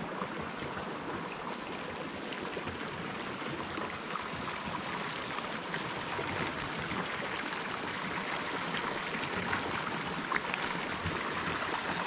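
Oak Creek's running water, a steady rushing stream sound.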